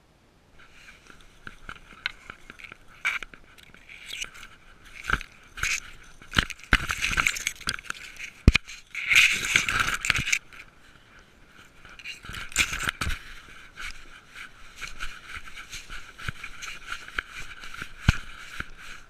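Dry, dead grass crunching and scraping against a GoPro worn by a cat as it pushes through the grass, with many sharp crackles starting about half a second in. The loudest stretch of crackling comes around the middle.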